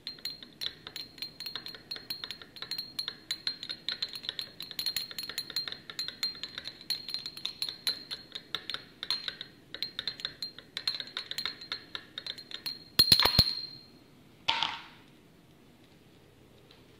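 Small glass jar of liquid soap being swirled, its glass clinking quickly and unevenly, several clicks a second. A louder clatter of glass about thirteen seconds in, then a brief knock.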